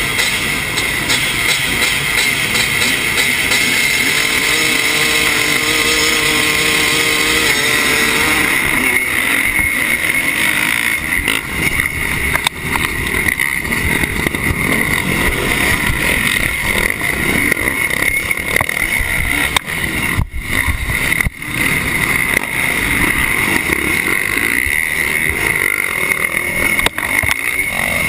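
Single-cylinder two-stroke engine of a 1986 Honda CR250 motocross bike running hard, heard up close from the rider's position, with other dirt bikes racing close by. About eight seconds in it changes from a clear revving pitch to a rougher, noisier run.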